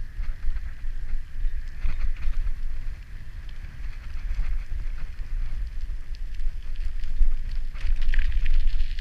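Bicycle riding along a path: wind buffeting the microphone as a steady low rumble, with tyre noise and light clicks and rattles from the bike, a little busier near the end.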